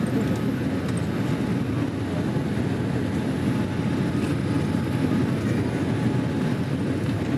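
Steady cabin noise inside a jet airliner on its approach to landing: an even low rumble of engines and rushing air, with a few faint steady tones above it.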